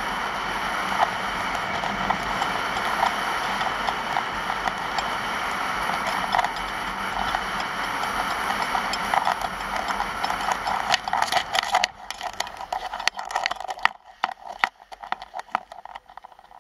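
Skis scraping and hissing over groomed snow during a downhill run, with wind on the microphone. About twelve seconds in it stops, and scattered clicks and knocks of ski gear follow.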